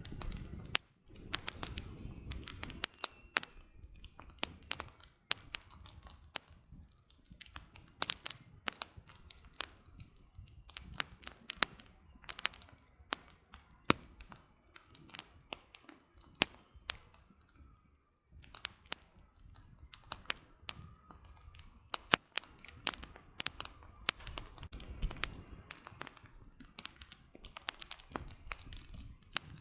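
Wood campfire crackling: burning firewood snapping and popping in quick irregular clusters of sharp cracks, over a soft low rush of flame that swells near the start and again late on.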